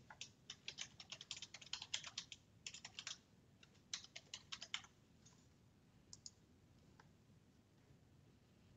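Faint typing on a computer keyboard: a quick run of keystrokes for about five seconds, then a couple of isolated clicks before it falls quiet.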